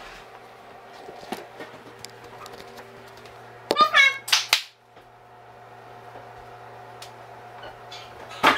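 A steady low hum in a quiet room, broken about four seconds in by a brief high-pitched cry and again near the end by a sharp clap.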